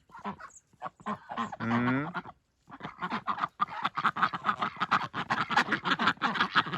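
Geese honking: a few separate calls in the first two seconds, then a fast, unbroken run of short honks from about three seconds in.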